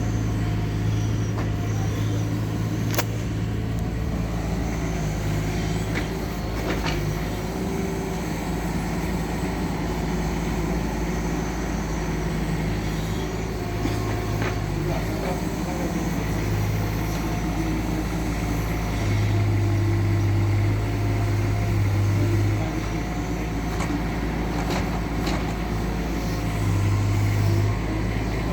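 Doosan DX19 mini excavator's diesel engine running steadily with a deep hum that grows louder for a few seconds near the middle and again near the end, with a few sharp clicks over it.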